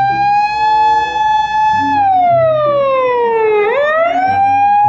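Japanese police car siren wailing. A high tone is held steady, slides slowly down over a couple of seconds, then sweeps quickly back up and holds high again.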